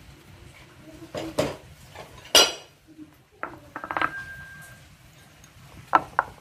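Metal utensils and dishes clattering as they are handled: scattered clicks, a loud clink about two seconds in, a clink with a short ringing tone about four seconds in, then two sharp knocks near the end.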